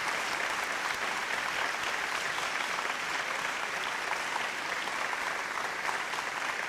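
Audience applauding: a steady, dense patter of many hands clapping.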